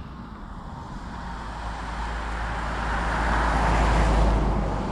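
A road vehicle passing by, a steady rushing noise with a low rumble that grows louder to a peak about four seconds in and then begins to fade.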